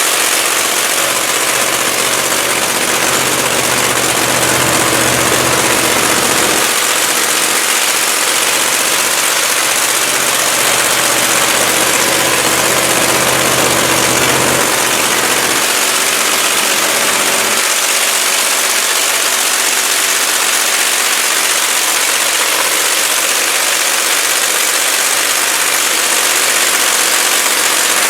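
Drag-racing engine idling loudly, a steady, hissy exhaust drone whose low rumble comes and goes several times.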